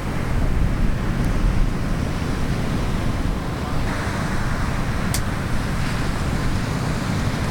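Wind buffeting the microphone over steady ocean surf, with a single sharp click about five seconds in.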